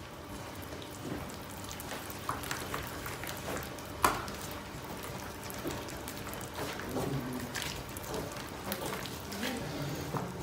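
Hand in a plastic glove mixing wet yeast dough into a well of flour on a wooden counter: soft, irregular squelching and crackling, with one sharper tap about four seconds in.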